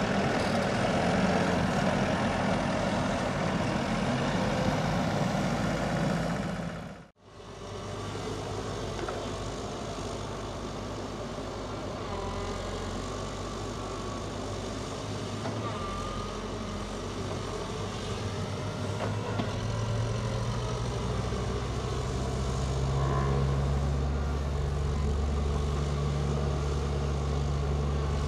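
Hydrema 912 articulated dump truck's diesel engine running close by, cut off by a brief fade to silence about seven seconds in. Then a CAT 312D excavator's diesel engine runs at work, its low hum growing louder from about twenty seconds in.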